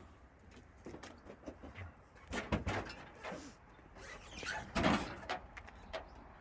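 Knocks and scraping as heavy tractor tires are handled and lifted, with two louder noisy bursts about two and a half and five seconds in.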